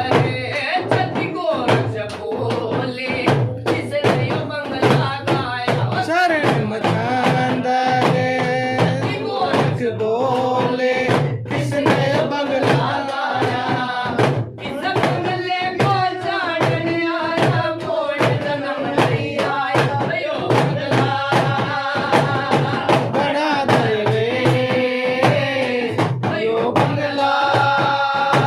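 Devotional bhajan music: a melody of held notes over steady, rapid drum strokes from a deru drum.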